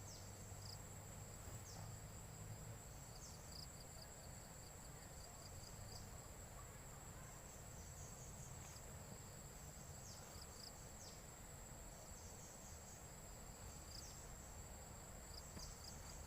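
Insects trilling in a continuous high, faint buzz, with short high chirps dropping in pitch now and then, over a low, steady outdoor rumble.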